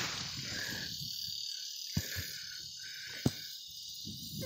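Insects chirring in a steady, pulsing chorus, while the echo of a .22 rifle shot dies away at the very start. Two faint knocks come about two seconds in, and a short sharp click a little after three seconds.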